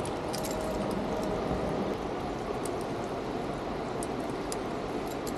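Steady rushing of flowing water, with a few faint ticks.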